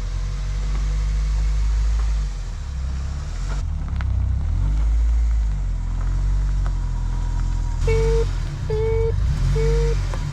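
A car engine idling with a steady low rumble. About eight seconds in, three short beeps sound at one pitch, evenly spaced.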